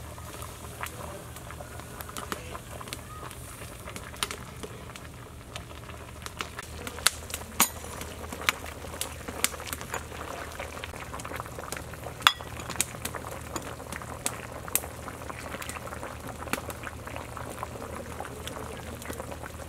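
A large pot of bamboo shoot and pig leg soup boiling steadily, with a metal ladle stirring it. Many sharp, irregular pops and clicks sound over the bubbling, a few louder about halfway through.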